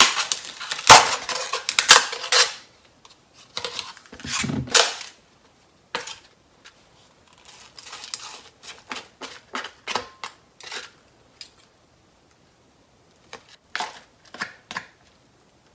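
Crinkling plastic as the film is peeled off a plastic natto pack for the first two or three seconds, then a knock or two around four seconds in, followed by scattered light taps and scrapes of wooden chopsticks against the plastic tray as the sticky natto is scraped into a ceramic mortar.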